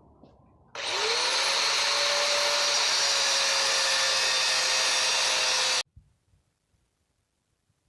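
Electric power tool starting up: its motor spins up in about half a second to a steady high whine over a loud rushing noise, runs evenly for about five seconds, then cuts off abruptly.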